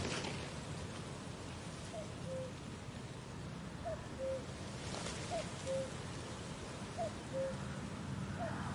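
A bird's soft two-note call repeats about every second and a half, starting about two seconds in. Each call is a short falling note followed by a slightly lower held note. Under it runs a steady outdoor background hiss.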